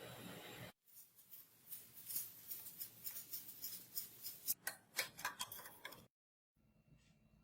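A rapid, irregular series of sharp clicks and short scrapes of hand work on metal, lasting about five seconds. Before it comes a brief hissing noise that cuts off abruptly.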